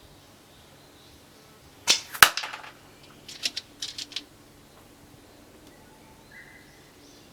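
Tokyo Marui L96AWS spring bolt-action airsoft sniper rifle firing once about two seconds in, a sharp snap with a short clatter. A few quick mechanical clicks follow a second or so later.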